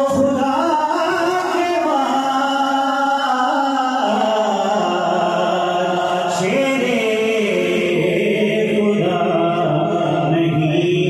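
A man's solo voice chanting a naat, amplified through a microphone, in long held melodic lines that slide between notes, with no instruments.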